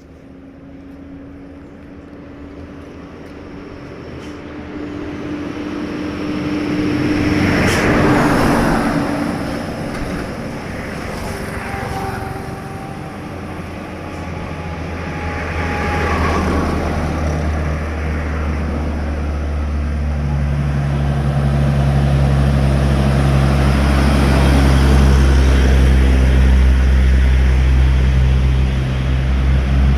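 Vehicles passing on a highway, then a heavily loaded Mitsubishi Fuso truck's diesel engine pulling hard at full throttle. Its deep, steady drone grows louder and is loudest near the end.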